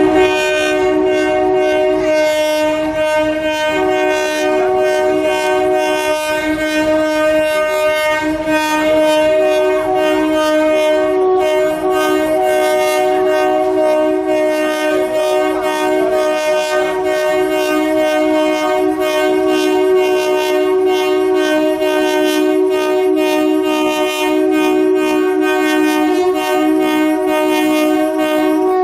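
Indian Railways locomotive horn held in a long multi-note chord, one of its notes cutting out briefly a few times, over the running noise of the train.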